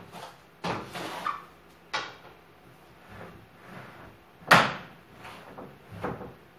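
A few short scrapes and knocks from cleaning around a bed with a long-handled broom, the loudest about four and a half seconds in.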